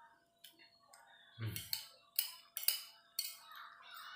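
Metal spoon clinking and scraping against a plate while scooping rice: about five sharp clinks starting about a second and a half in, the first with a dull knock.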